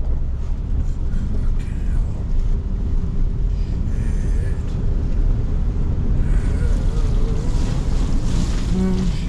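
Car driving through floodwater: a steady low rumble with water rushing and splashing against the vehicle, the rushing louder in the last few seconds.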